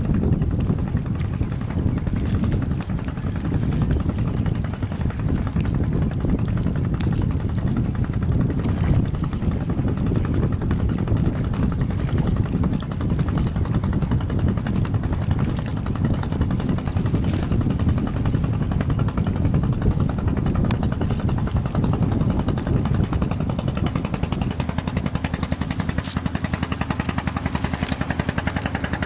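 An engine running steadily at a low pitch, with a brief sharp tick near the end.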